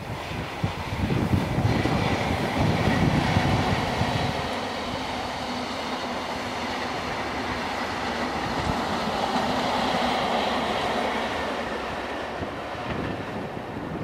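Network Rail's yellow High Speed Train measurement train, with Class 43 power cars at each end, passing at speed. A heavy rumble fills the first few seconds as the leading power car goes by. The steady roar of the train on the rails follows, swells again about ten seconds in, then eases off as the train moves away.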